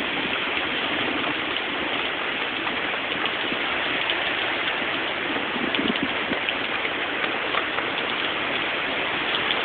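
Heavy hurricane rain falling steadily, a dense, even hiss.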